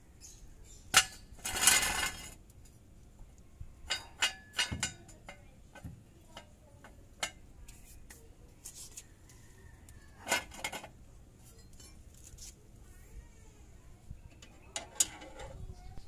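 Scattered metal clinks and knocks as a steel jack stand is set under the raised car beside a scissor jack and the jack's crank handle is handled. The loudest clanks come about two seconds in and again about ten and fifteen seconds in.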